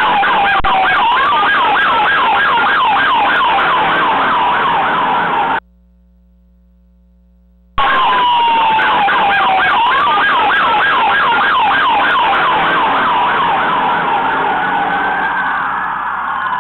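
Police siren sounding: a falling wail, then a rapid yelp of about three or four sweeps a second. It cuts out for about two seconds and comes back with the same wail-then-yelp pattern. Near the end a slower wail overlaps it and the sound fades a little.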